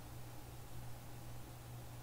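Quiet room tone: a steady low hum with a faint even hiss.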